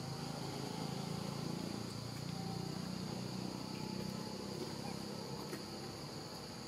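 Steady, high-pitched insect chorus, with a low rumble underneath.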